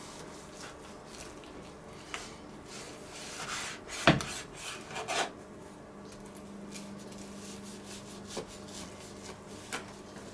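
Large kitchen knife sawing through crisp puff pastry and pork fillet, scraping on a wooden cutting board, with a sharp knock of the blade on the board about four seconds in and a few lighter clicks.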